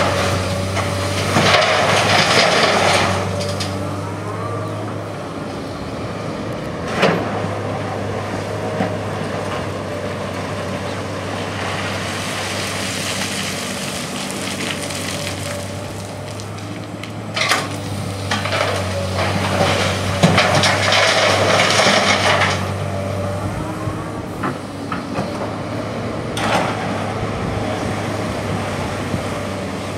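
Komatsu PC240-8 excavator working: its diesel engine runs with a steady low drone, with two louder spells of rough, rasping noise from the digging about a second in and again near twenty seconds. Sharp knocks come twice, about seven and seventeen seconds in.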